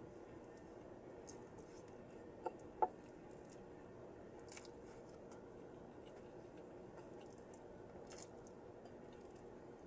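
Close-miked chewing and biting while eating vegetables: irregular soft wet smacks and clicks, with a sharper pair about two and a half to three seconds in.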